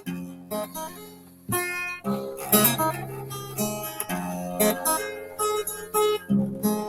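Acoustic guitar strummed in chords, with a series of sharp strums and the chords ringing between them, and no voice.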